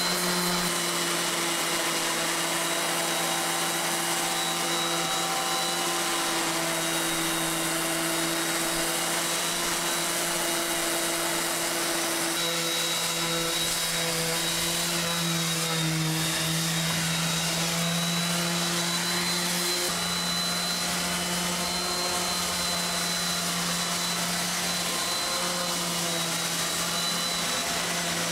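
Electric random orbital sander running steadily as it sands an epoxy-coated fiberglass roof, a constant hum with a high whine whose pitch shifts slightly a few times as the pressure on the pad changes.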